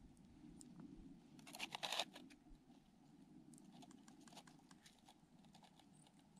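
Hands handling a winter fishing tip-up at an ice hole: faint rustling and small clicks, with a short burst of denser rustling and clicking about a second and a half in, otherwise near silence.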